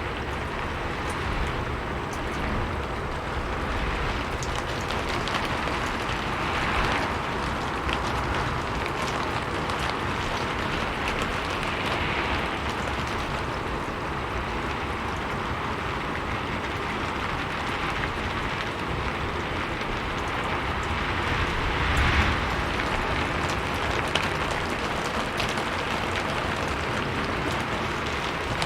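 Rain falling steadily on a roof: a dense patter of drops that swells and eases slowly, heaviest about 22 seconds in.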